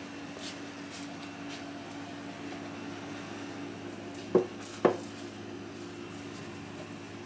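Two sharp knocks about half a second apart as a blender jar of pancake batter is set down onto its blender base, over a steady low hum.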